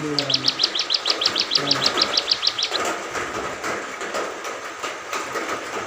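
A ciblek songbird singing a fast, even trill of about twenty sharp chirps over roughly two and a half seconds, then stopping. People talk quietly in the background.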